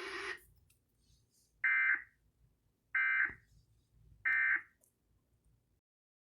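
Emergency Alert System end-of-message data tones: three identical short bursts of shrill, buzzy digital tone, about 1.3 seconds apart, marking the end of the alert.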